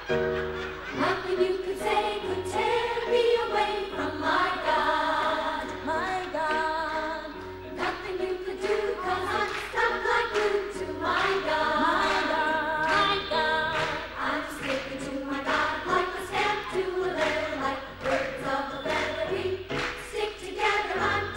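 A small group of voices singing together in harmony, with instrumental accompaniment and a steady beat.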